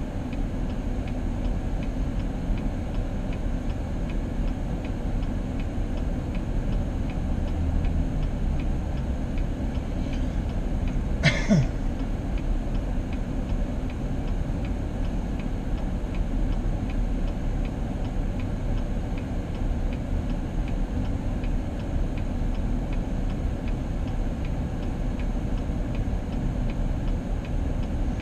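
Steady road noise of a car driving, with a faint, evenly spaced ticking underneath. About eleven seconds in there is one brief sharp knock with a short sound sliding down in pitch.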